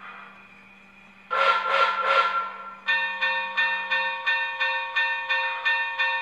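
Proto-Sound 3 sound system in an O-scale Pennsylvania Railroad M1b 4-8-2 steam locomotive model. A faint steady hum is followed by three short hissing steam bursts, then the locomotive bell starts ringing steadily at about three strokes a second.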